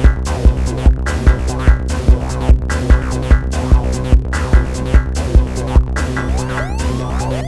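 Electronic techno-style music from Moog synthesizers and a Roland TR-6S drum machine: a steady kick drum beat, about two and a half hits a second, over a sustained droning synth bass, with short rising synth sweeps coming in near the end.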